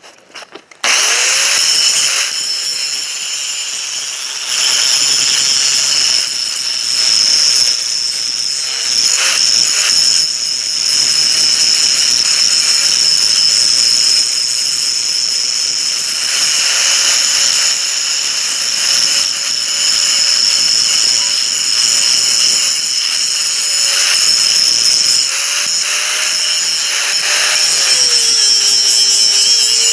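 Electric grinder spinning up about a second in and grinding steadily on plasma-cut steel pipe, cleaning off slag and rust. Its motor pitch sags briefly near the end.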